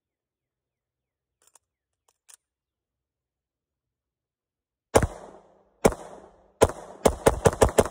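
Glock 48 9mm pistol with a PMM barrel and compensator firing. After about five seconds of silence broken only by two faint clicks, three shots come a little under a second apart, then a fast string of shots at about four a second near the end.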